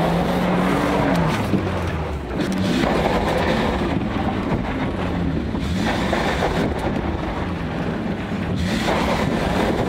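Nissan VG30 3.0-litre V6 truck engine running under load as the truck crawls over a rough trail, its pitch shifting up and down over a steady rough rumble and rattle of the truck jolting.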